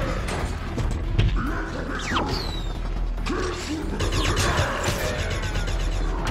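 Sci-fi film battle sound effects: clicking, ratcheting robot mechanisms and short gliding servo whines over a steady low rumble.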